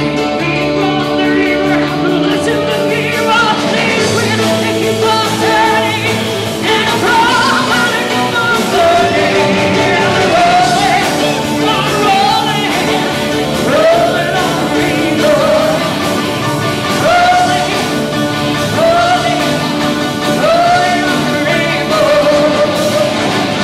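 Live rock band playing: drum kit, electric bass, electric guitar and keyboard together with singing, the melody sliding upward in short repeated phrases.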